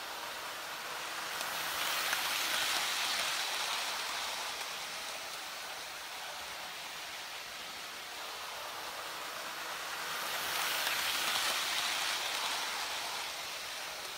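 Hornby Dublo OO gauge model train (LNER A4 locomotive Sir Nigel Gresley with coaches) running round an oval of track, a steady rushing of wheels and motor on the rails that swells twice, about two and eleven seconds in, as the train comes round past the near side of the loop.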